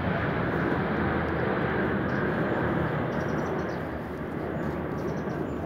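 Drone of military aircraft flying over during a flypast, a steady rumbling noise that slowly fades, with faint bird chirps from about halfway through.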